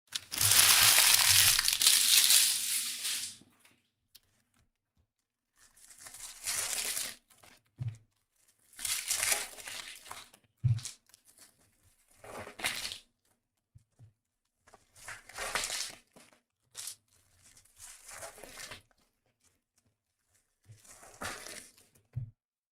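Trading-card packaging being torn open and crinkled in repeated bursts, the first and loudest lasting a few seconds. A few dull thumps fall between them.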